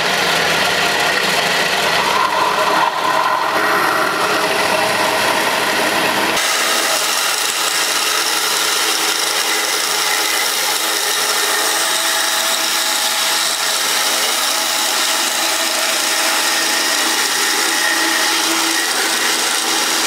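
Bandsaw running and cutting lengthwise through a used plastic refrigerator water filter cartridge: a loud, steady sawing noise. The low rumble drops away abruptly about six seconds in.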